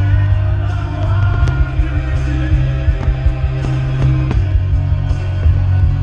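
Music playing loudly over a sound system with firework shells bursting against it: sharp bangs every second or so over a deep rumble.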